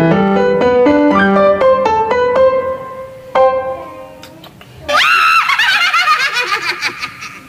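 Piano music playing a quick run of notes that settles on a held note. About five seconds in, a high-pitched cry rises and breaks into a fast warbling, giggle-like sound.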